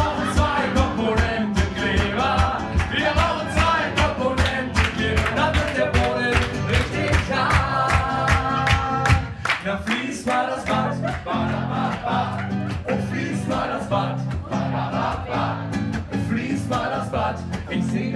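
Acoustic guitar strummed steadily, with singing over it.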